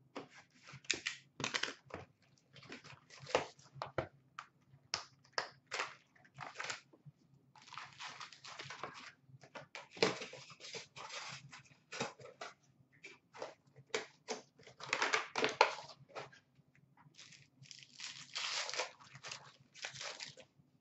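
Foil wrappers of Upper Deck Ice hockey card packs crinkling and being torn open by hand, in irregular bursts of rustling, some lasting about a second.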